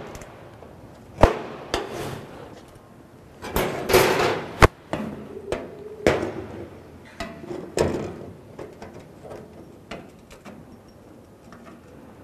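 Metal marking-out tools knocking and scraping on a steel plate lying on a steel workbench: several sharp knocks spread through, with a scratchy scraping stretch around four seconds in.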